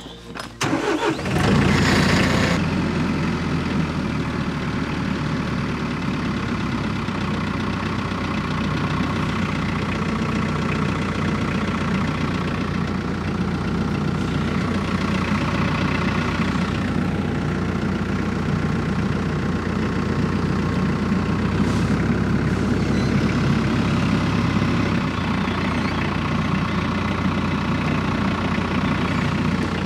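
TYM T474 compact tractor's diesel engine running steadily near idle, coming in loudly about a second in, its pitch shifting slightly a few times.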